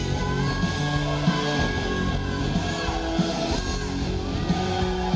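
Symphonic metal band playing live, recorded from among the audience: amplified guitars and keyboards, with a voice singing long held notes over them.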